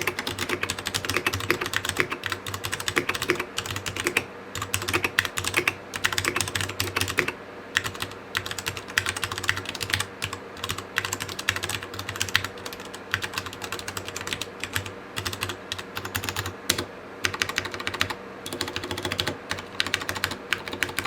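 Fast typing on a Ducky One 2 Mini mechanical keyboard with Cherry MX Brown switches and pudding keycaps: a dense run of key clicks with a few short pauses.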